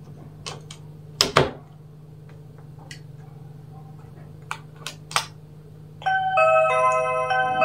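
Commax one-line audio intercom handset ringing: an electronic chime of stepped notes starts about six seconds in, after the door station's call is triggered. Before it come a few sharp plastic clicks, the loudest about a second in, over a low steady hum.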